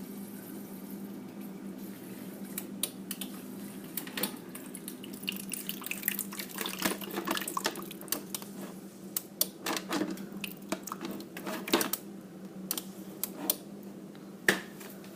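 Water running from a refrigerator's door dispenser into a jug under a steady low hum, to flush a newly fitted water filter. Irregular sharp clicks and knocks of the jug against the dispenser come through it, the loudest near the end.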